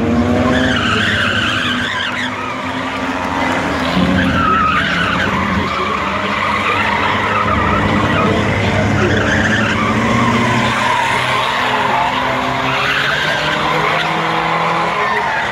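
Several skid plate race cars running together on the track: engines revving, and the steel skid plates fitted in place of the rear tyres scraping and grinding along the asphalt.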